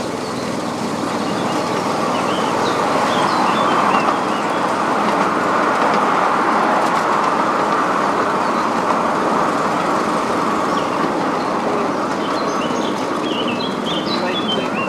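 Miniature railway train running along its track, heard from on board: the steady running noise of the wheels on the rails. Birds chirp faintly a couple of times, about two seconds in and near the end.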